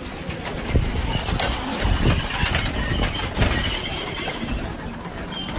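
Metal prayer wheels rumbling and rattling as people spin them by hand, with a brief high squeak near the end.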